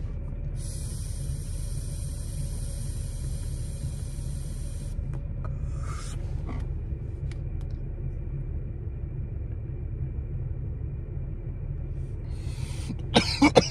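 A vape cartridge pen hissing for about four and a half seconds as air is drawn hard through it, a draw that needs a hard inhale to fire the cart, then a short exhale about six seconds in. A steady low rumble of the car cabin runs underneath, with a few brief sharp sounds near the end.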